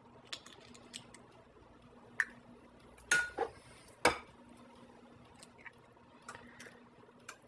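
Kitchen bowls and utensils clinking and knocking as beaten eggs are added to a mixing bowl of creamed oil and sugar: a few light knocks, with a louder, briefly ringing clink about three seconds in and a sharp knock about a second after it.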